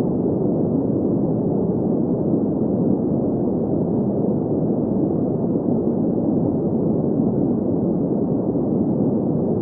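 Steady green noise: an even, unchanging hiss weighted toward the low and middle range, with nothing above the mid-highs.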